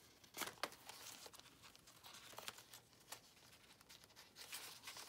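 Faint rustling and light clicks of paper pages and lace trim being turned by hand in a handmade journal, with two sharper clicks about half a second in.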